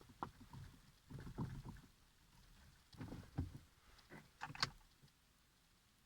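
Mazda 6 (GG/GY) knocking from underneath, a series of dull irregular knocks in several groups that stop about five seconds in; the owner suspects a worn steering rack.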